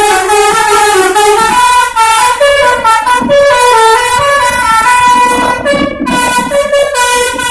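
Bus telolet horn (a Basuri multi-tone horn) playing a tune: a loud, unbroken run of short notes that step up and down in pitch.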